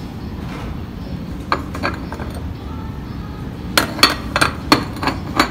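Ceramic dishes clinking against each other: two sharp clinks, then a quick irregular run of about six near the end, over a steady low street rumble.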